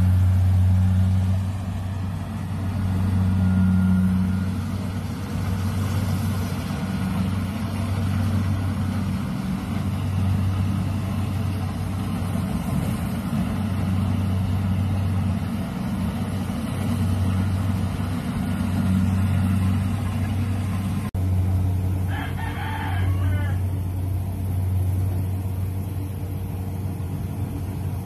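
Rice combine harvester's engine running with a steady low drone. A rooster crows once a little past two thirds of the way through.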